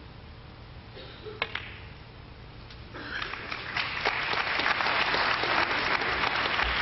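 A single sharp click of snooker balls about a second and a half in, then audience applause that starts about three seconds in and builds.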